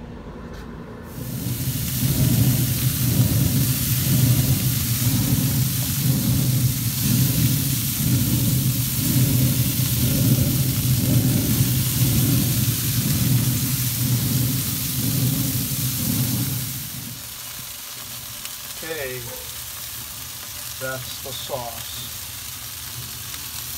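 Bacon-wrapped meatballs sizzling on a pellet grill's grate, a steady hiss over a strong low rumble. It drops much quieter about 17 seconds in.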